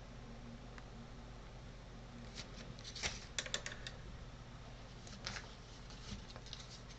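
Faint handling noise of small parts: a cluster of light clicks and rustles about halfway through, and a few more near the end, over a low steady hum.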